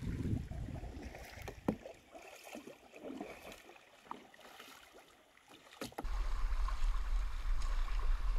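Kayak paddle strokes on calm river water, with a few light knocks and splashes. About six seconds in, this gives way suddenly to the steady rush of water through river rapids, with a heavy low rumble on the microphone.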